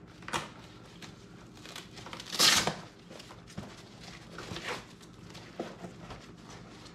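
Gloved hands handling an oven-heated plastic ski boot shell, pulling its cuff and tongue open: a few light knocks and one brief, louder rustling scrape about two and a half seconds in.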